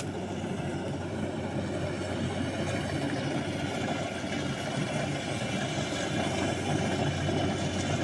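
Kubota DC-70 rice combine harvester's diesel engine running steadily as it cuts rice, a constant low drone over a mechanical hum, growing slightly louder as the machine approaches.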